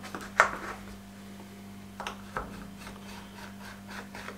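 A pointed knife scoring lines through a sheet of sesame-and-jaggery chikki in a steel tray, the chikki just starting to harden. It makes quiet scraping with a few sharp scrapes, about half a second in and again about two seconds in.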